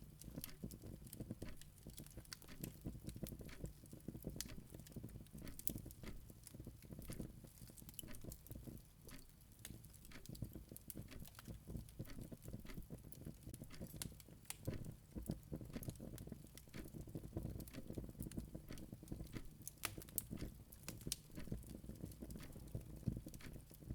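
Faint background ambience: irregular light crackling taps over a low steady rumble.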